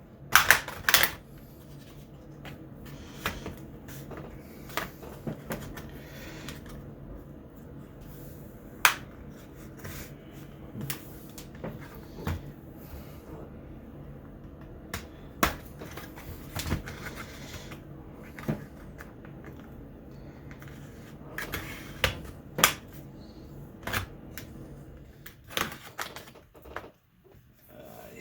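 Irregular clicks and taps of a screwdriver and the plastic casing of an HP G60 laptop being handled during disassembly, over a faint steady hum.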